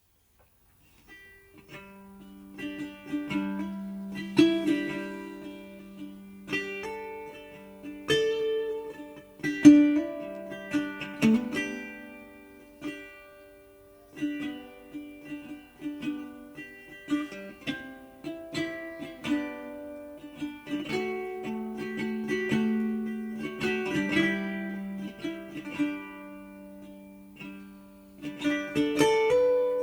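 Calm instrumental music on a plucked string instrument: single notes and chords picked with sharp attacks that ring and fade, starting about a second in.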